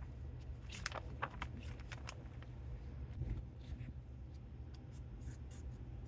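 Plastic vapour-barrier sheeting crinkling and a cardboard template being handled and scratched over, as a fan-housing outline is traced with a marker: irregular short scratches and rustles, loudest about a second in, over a low steady hum.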